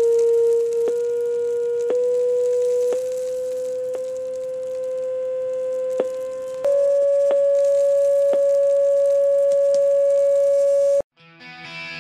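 Steady sine tone from an online tone generator played through a small loudspeaker, driving a salt-covered rubber membrane. The pitch steps up in small jumps about once a second, each with a click, then jumps higher and holds before cutting off suddenly near the end. Guitar music starts right after.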